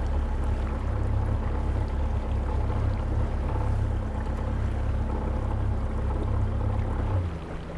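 Tiller-steered outboard motor running steadily at cruising speed, a constant low drone. Near the end the engine note drops and changes.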